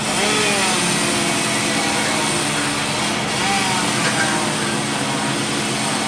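Engines running steadily: a constant hum under an even hiss, with a few faint tones rising and falling.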